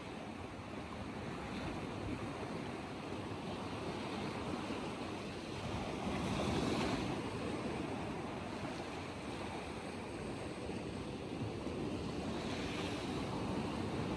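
Sea surf breaking and washing over a rocky shelf, a steady rush of waves that swells louder about halfway through as a bigger wave breaks.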